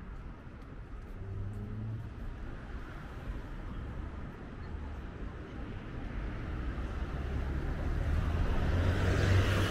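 Street traffic on a busy boulevard: vehicles running past, one growing louder near the end as it comes close.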